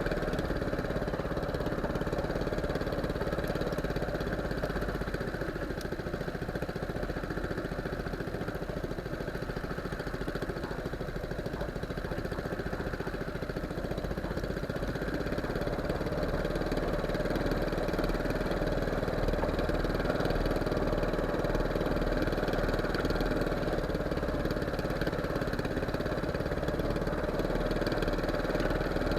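Small fishing boat's engine running steadily, a little louder in the second half.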